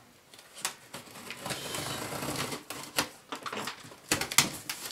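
Scissors cutting through the packing tape and cardboard of a shipping box: a stretch of scraping and rustling in the middle, with sharp snips and clicks, the loudest of them a little after four seconds in.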